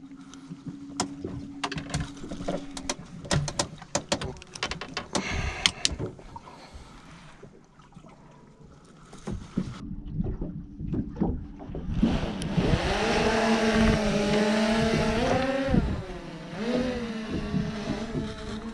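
Knocks and clatter of gear on a fishing boat, then an outboard motor powering up about two-thirds of the way in, running steadily at higher revs for a few seconds and easing back near the end.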